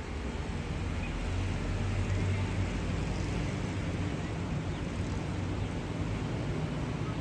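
Steady outdoor city ambience: a low rumble of distant road traffic mixed with wind on the microphone, swelling slightly about a second in.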